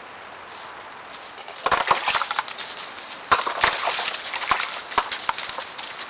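Javelina moving at a water bowl: irregular crackling clicks and snaps beginning about a second and a half in, over a steady hiss.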